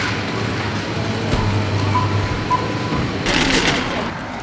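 Supermarket checkout sounds: a steady low hum with two short beeps about two seconds in, then a brief burst of rattling noise near the end.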